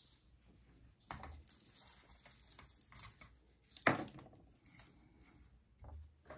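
Gritty succulent substrate being poured and pressed in around a jade plant's root ball in a pot, with dry rustling and crunching. There is a sharp knock about four seconds in.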